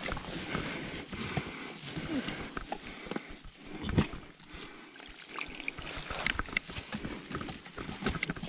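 Gloved hands working inside an opened deer carcass during field dressing: irregular wet handling noises and the rustle of long plastic gloves, with one louder knock about four seconds in.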